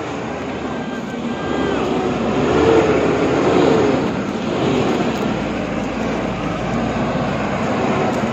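BharatBenz 1214 truck's diesel engine running under load as the truck drives over a rough dirt track, a steady dense rumble that grows a little louder about two to three seconds in.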